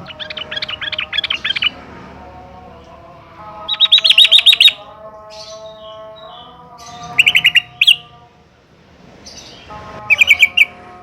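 Yellow-vented bulbul (trucukan) calling in four short bursts of rapid repeated notes, the burst about four seconds in the loudest, over steady held tones of background music.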